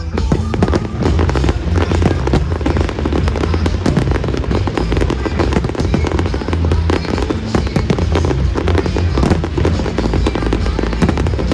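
Fireworks display in a dense barrage: rapid, continuous bangs and crackling throughout, mixed with loud music from the pyromusical soundtrack.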